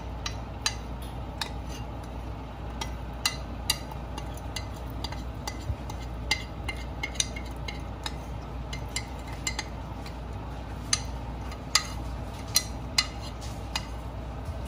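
Metal spoon scraping and clinking against a glass baking dish while thick paste is scraped out into a pot of broth: irregular sharp clinks, about two a second, over a steady low hum.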